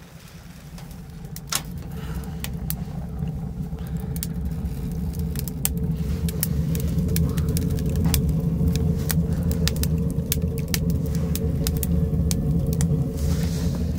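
Wood fire burning in a small steel tent stove with its door open: a steady low roar with frequent sharp crackles and pops. It grows louder over the first few seconds.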